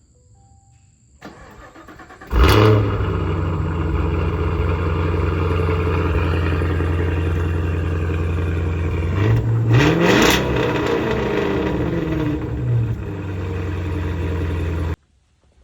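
Cadillac CT5-V Blackwing's supercharged 6.2-litre LT4 V8 on its stock exhaust, cold start: the starter cranks for about a second, then the engine catches with a loud flare and settles into a steady fast idle. About two-thirds of the way through it revs once and drops back to idle, and the sound cuts off suddenly near the end.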